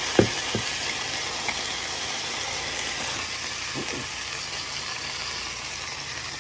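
A buttered cheese sandwich sizzling in a waffle iron, a steady hiss, with a sharp clunk just after the start as the waffle iron lid is closed and a lighter knock half a second later. Two faint knocks follow near the middle.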